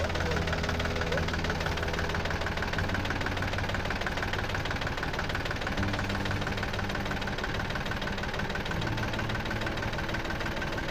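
Kubota L1-205 Sunshine tractor's engine running steadily while its rear-mounted rotary tiller works the soil.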